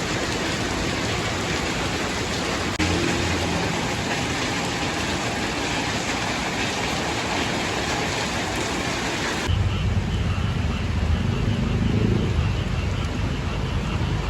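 Steady hiss of heavy rain. About nine and a half seconds in, it cuts to a motor vehicle engine running amid road traffic noise.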